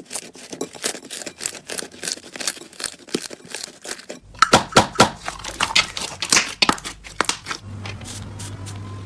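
Slime being squeezed and poked by hand: a rapid run of small sticky clicks and crackles. About four seconds in, louder pops start over a low hum, and the popping stops near the end.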